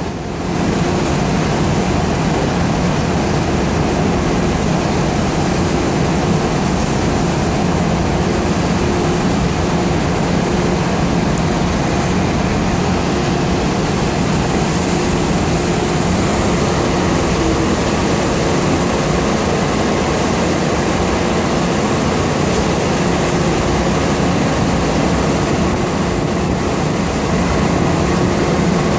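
Large car ferry's diesel engines and propellers working as it docks: a steady heavy rumble with a low hum under a churning hiss.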